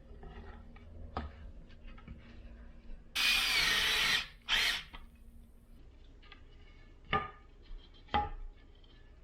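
Power drill running in a burst of about a second, then a short second burst, during the building of a wooden stand. A few separate sharp knocks come before and after it.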